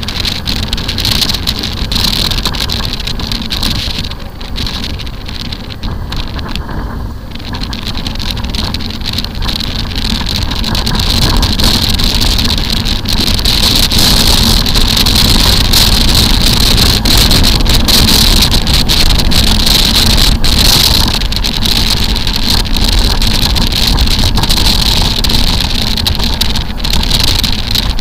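Motorcycle riding noise: engine and road noise mixed with wind rushing over the microphone, growing louder and steadier about twelve seconds in.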